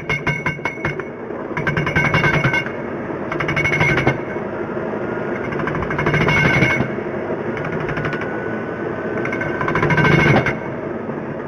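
Repeated bursts of rapid mechanical-sounding rattling, each lasting about a second and coming every two seconds or so, over a steady low hum: a horror sound effect.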